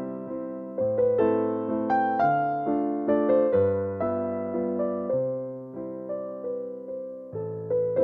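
Slow, gentle piano music: notes struck one after another and fading, over low bass notes that change every second or two.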